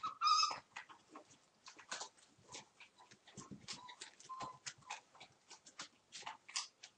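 Month-old Entlebucher mountain dog puppies playing: a short high yelp just after the start, then a busy run of small clicks and scuffles with a couple of brief squeaks in the middle.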